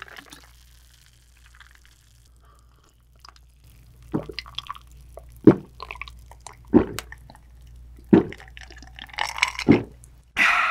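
Gulping swallows of an aloe drink from an ice-filled glass mug, close to the microphone. There are five loud gulps about a second and a half apart, starting about four seconds in.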